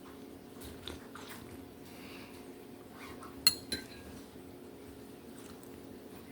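Light clinks against a dish, some with a short ringing ping; the loudest two come close together about three and a half seconds in, over a steady low hum.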